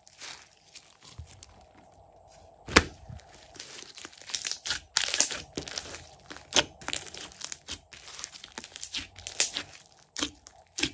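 Glossy slime being squeezed, poked and stretched by hand, giving irregular wet clicks and pops of trapped air, with one louder pop about three seconds in and a thick run of crackling pops through the second half.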